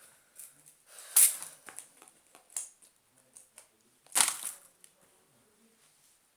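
Fidget toys and their plastic being handled and put away: rustling and crinkling with scattered small clicks, and two louder rustles, about a second in and about four seconds in.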